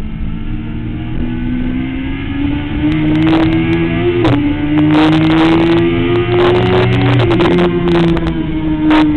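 Sport motorcycle engine under hard acceleration at speed, its pitch climbing with a brief dip about four seconds in, then falling from about seven seconds in as the throttle comes off. Wind buffets the onboard microphone through the second half.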